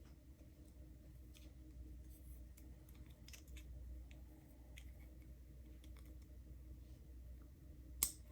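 Faint, scattered small metal clicks and ticks of a padlock being taken apart by hand while its tiny C-clips are worked off, with one sharp click near the end.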